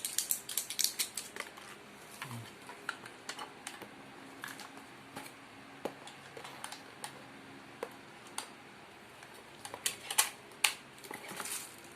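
Small plastic clicks and rattles of batteries being fitted into a handheld fetal Doppler: a quick flurry at the start, scattered clicks, then another burst of clicks about ten seconds in.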